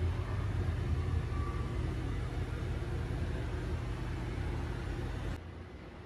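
A steady low rumble with a faint hiss, with no clear source; it drops suddenly to a quieter hum about five seconds in.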